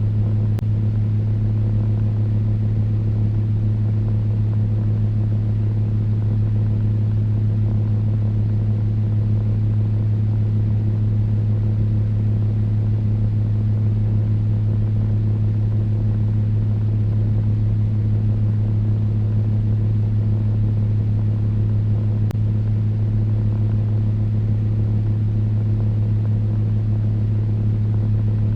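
Electric fan running steadily: a constant low motor hum under an even rush of moving air.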